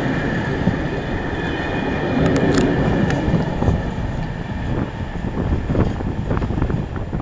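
Freight train of container and tank-container wagons rolling past: a steady low rumble of wheels on rail with many sharp clicks and clanks as the wheels pass over joints, easing slightly toward the end.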